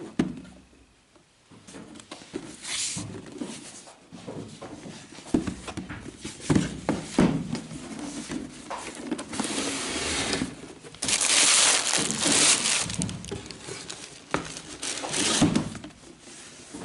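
Handling of a cardboard sneaker box: scattered knocks and scraping of cardboard, with a loud stretch of rustling about eleven seconds in.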